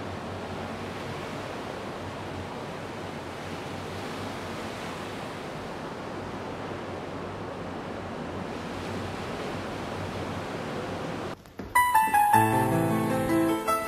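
Ocean surf washing steadily onto a rocky shore. About 11.5 seconds in, it cuts off suddenly and keyboard music with piano-like notes starts.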